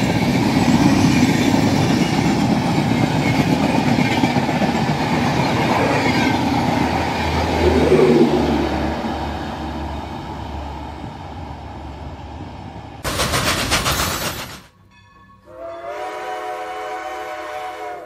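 Passenger train coaches rolling past, wheels running over the track, the sound fading as the train draws away. Near the end a short burst of noise, then a tonal end-screen jingle.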